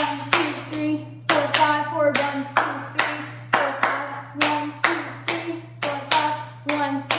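A woman's hand claps in a steady rhythm, about two a second, with her voice vocalizing along between the claps.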